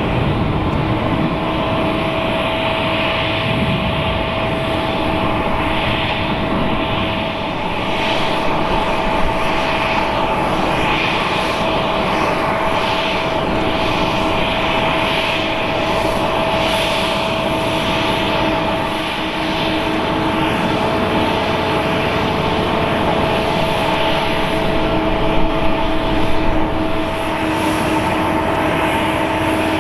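Rolls-Royce Trent 895 turbofans of a Boeing 777-200ER running at low thrust as the airliner taxis: a constant whine at a fixed pitch over a steady rush of engine noise.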